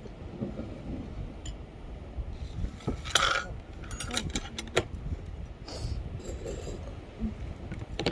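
Utensils and dishes clinking and knocking in scattered sharp clicks, the loudest a little after three seconds in.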